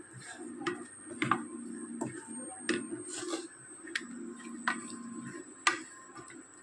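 Spatula stirring a thick, crumbly paneer-and-milk mixture in a non-stick pan. It strikes the pan with a light click about every two-thirds of a second, over a faint steady high whine.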